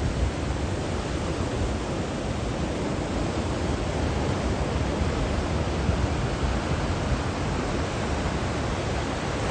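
Ocean surf breaking as a steady wash of noise with a heavy low rumble, swell driven by approaching typhoons.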